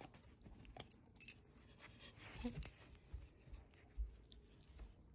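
Faint, scattered clicks and light jingling from a Siberian husky puppy's collar tags as it noses about on carpet, with a brief low dog vocal sound about two and a half seconds in and a soft thump near four seconds.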